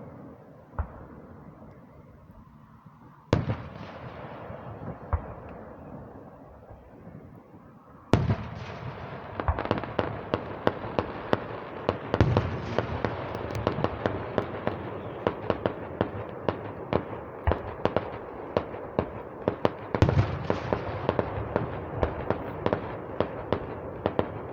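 Fireworks going off: a few separate bangs at first, then about eight seconds in a dense, continuous crackle of many rapid sharp pops with louder booms among them.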